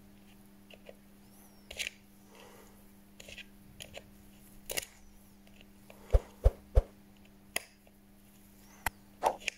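Small tools and phone parts handled on a workbench during a smartphone screen replacement: scattered light clicks and taps, with three louder knocks about six to seven seconds in. A steady low hum runs underneath.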